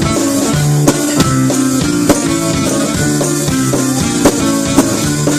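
Live band playing an instrumental passage between sung verses: held guitar and bass notes over a drum kit, with a few sharper drum hits.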